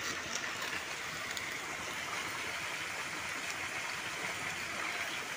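Steady outdoor background hiss, even throughout, with a few faint ticks.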